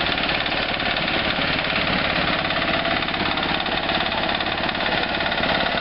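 Engine-driven construction machinery running steadily at a concrete pour, with a rapid rattling pulse.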